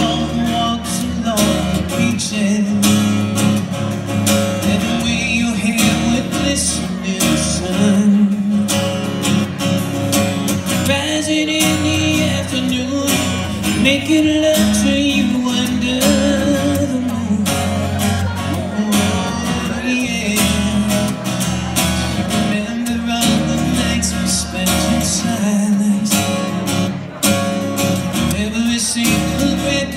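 Strummed acoustic guitar with a man singing along, a live solo acoustic performance of a pop-rock ballad.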